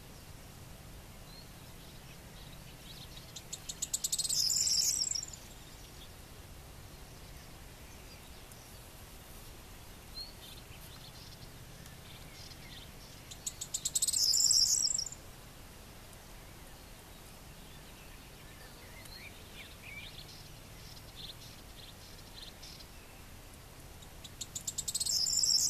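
Corn bunting singing three short songs about ten seconds apart. Each is a run of quickening ticks that ends in a high, jangling trill. Faint short chirps are heard between the songs.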